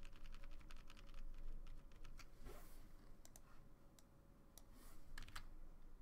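Faint clicking of computer keyboard keys, pressed in quick succession for the first couple of seconds, then thinning out to scattered single clicks.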